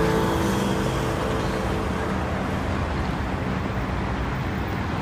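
Steady city street traffic noise: cars running along a busy avenue.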